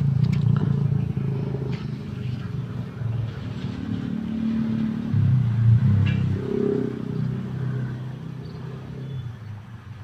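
Motor vehicle engine running, a low steady rumble that fades near the end.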